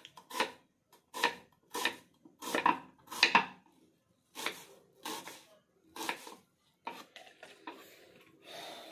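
Kitchen knife roughly chopping red onion on a round wooden chopping board: a string of about a dozen knocks of the blade through the onion onto the wood, roughly two a second, loudest in the first half.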